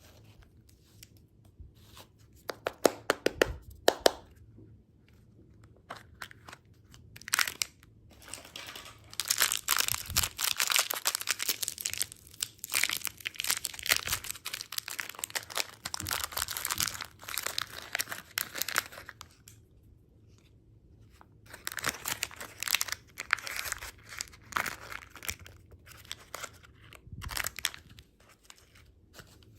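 Candy packaging being torn open and crinkled, in bursts of crisp crackling with short pauses between.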